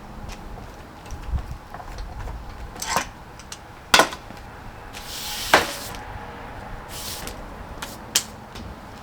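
Pallet-wood boards being handled: a few sharp wooden knocks as they are set down or bumped together, with short scraping or sliding sounds in between.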